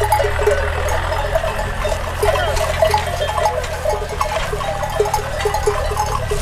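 Many small neck bells on a flock of sheep and goats clanking continuously as the animals move, several overlapping strikes a second, over a steady low rumble.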